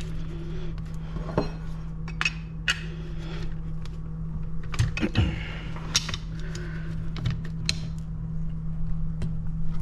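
Scattered metal clicks and taps as an AR-15 castle nut is threaded onto the buffer tube over the end plate and tightened down, with a steady low hum underneath.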